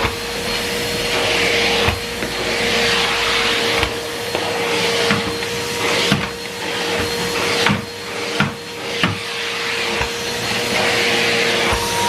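Numatic Henry Pet canister vacuum cleaner running: a steady motor hum under a hiss of suction that swells and fades every second or two as the floor tool works, with several light knocks in the middle.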